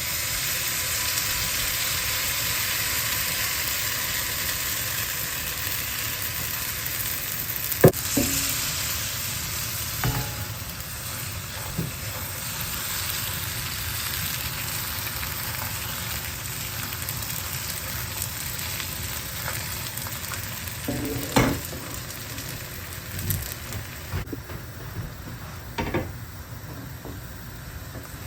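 Food sizzling as it fries in a pan, a steady hiss that eases off somewhat near the end, with a few sharp clicks and knocks scattered through it.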